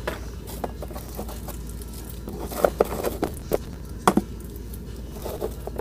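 Scattered light knocks and clicks from someone moving about and handling things close to the phone, with a cluster of sharper knocks in the middle, over a steady low hum.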